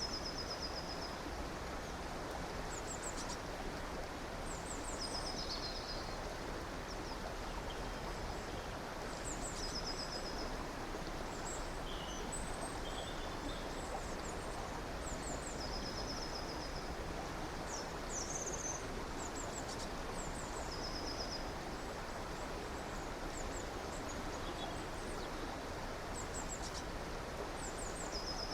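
Steady rush of a river or stream, with small birds calling high above it. The calls are short rapid trills about a second long, repeated every few seconds, mixed with brief high chirps.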